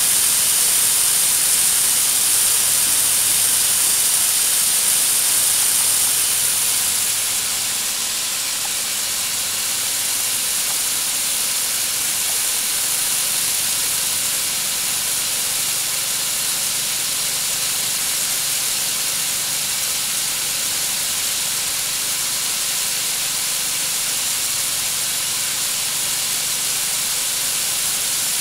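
Homemade snowmaking gun's nozzles spraying water mist, a steady high hiss that softens slightly about seven seconds in.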